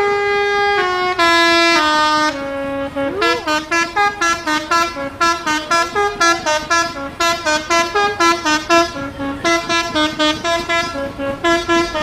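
Odong-odong's telolet horn playing a tune: a few long notes stepping downward, then from about three seconds in a quick run of short, repeated notes.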